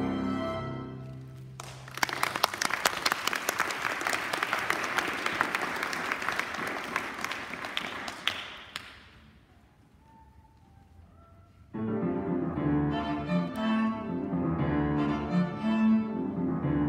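A string quartet's bowed strings end a piece on held notes, then an audience applauds for about seven seconds before the clapping dies away. After a few seconds of hush the quartet starts the next piece.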